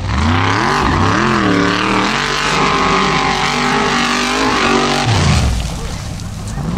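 Off-road race buggy engines revving hard at full throttle, the pitch rising and falling as the driver works the throttle and the wheels spin and bite. About five seconds in the sound changes and another engine revs up.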